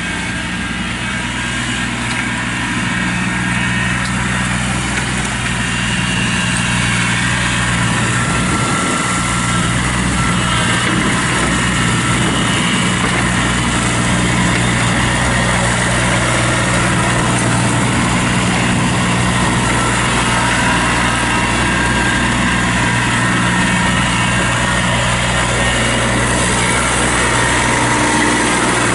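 Kubota B2400 compact tractor's three-cylinder diesel engine running steadily as the tractor drives, getting louder over the first few seconds as it comes closer.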